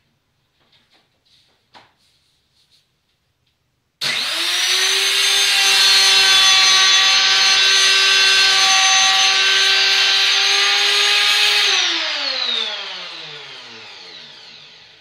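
Router in a router table switching on suddenly about four seconds in, running at full speed for about eight seconds, then switched off and spinning down with a falling whine. A few light knocks of handling come before it starts.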